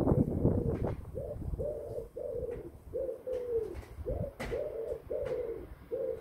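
Wood pigeon cooing: a steady run of short, slightly falling coo notes, about two a second. Low rumbling noise in the first second.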